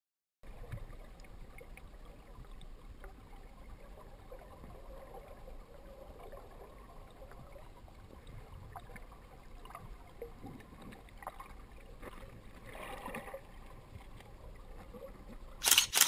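River water heard underwater through a GoPro's dive housing: a steady muffled rush with faint scattered clicks. It starts after a brief silence and swells a little a few seconds before the end, then there is a short loud burst right at the end.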